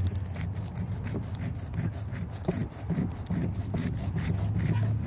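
A piece of quahog shell scraped back and forth against a coarse stone in repeated gritty strokes, the rind being ground off the shell by hand.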